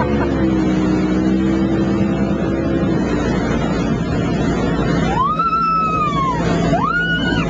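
Motorboat running steadily under way, its engine hum mixed with wind and water noise. Near the end, two high gliding tones: one rises and then slowly falls, and a second rises just before the end.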